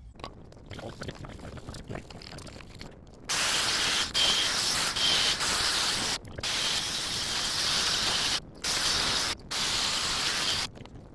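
Aerosol brake cleaner spraying, a loud hiss in five long bursts with short breaks between them, after a few seconds of quiet handling noises.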